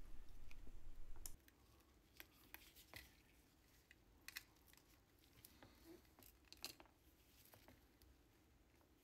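Near silence with a handful of faint, scattered small clicks of a screwdriver tip on screws in a plastic trackball housing. A low hiss stops after about a second and a half.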